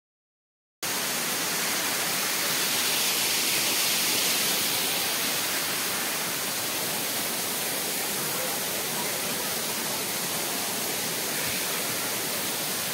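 Steady rushing of a waterfall pouring over rocks, starting abruptly about a second in.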